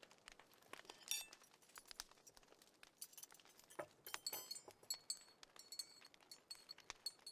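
Faint, irregular clinking of dishes and glassware at a kitchen counter, many light knocks, some with a brief ringing tone.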